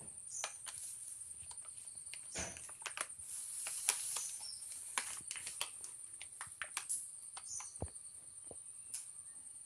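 Cat food packet rustling and crackling in irregular clicks as kittens paw and bite at it, the sharpest crackle about four seconds in, over a steady high-pitched insect-like buzz with a few brief high chirps.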